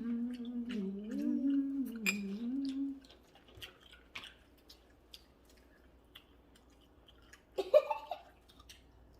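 A person humming a long, wavering closed-mouth "mmm" while eating, which stops about three seconds in. Then come soft chewing and small clicks, and a short vocal sound near the end.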